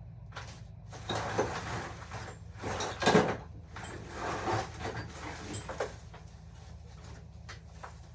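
Rummaging through a drawer of odds and ends: loose small parts and objects clattering and shuffling in irregular bursts, loudest about three seconds in.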